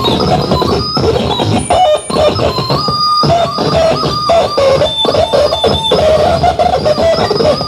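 Live amplified noise performance: dense crackling, scraping electronic noise with wavering held tones and squeals, chopped by a few brief dropouts.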